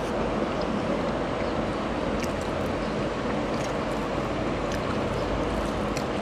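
Steady rushing background noise, with a few faint soft clicks from fingers mixing rice on a plate as she eats.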